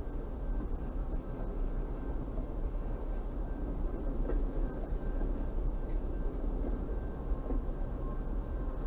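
Pan Am Railways freight train of boxcars rolling slowly past while switching: a steady low rumble of wheels on rail, with faint steady high tones above it.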